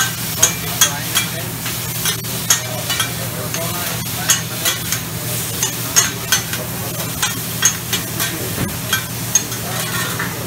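Metal spatulas clacking and scraping on a flat-top griddle as shrimp and vegetables are stir-fried, with sharp irregular clacks about twice a second over a steady sizzle. A steady low hum runs underneath.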